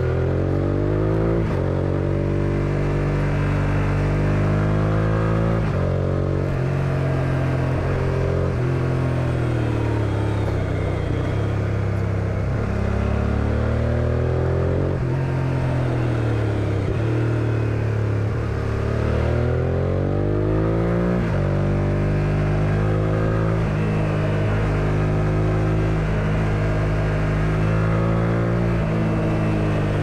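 1999 Suzuki SV650S's 645 cc V-twin engine under way, its revs repeatedly climbing and then falling back as the bike is ridden through a run of bends.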